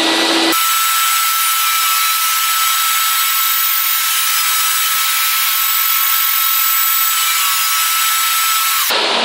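Small benchtop table saw cutting a wooden board fed through the blade by hand, a loud steady whine. The sound of the cut sets in about half a second in and holds until near the end.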